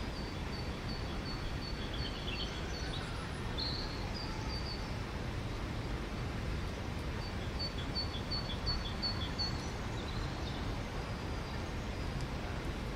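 A small songbird singing runs of short, high, evenly spaced notes, twice a few seconds apart, over a steady low rumble of distant city noise.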